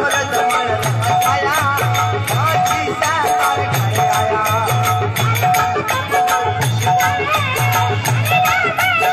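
A man singing a Rajasthani desi bhajan into a microphone over a rhythmic folk accompaniment: a low beat and a short note repeating at an even pace.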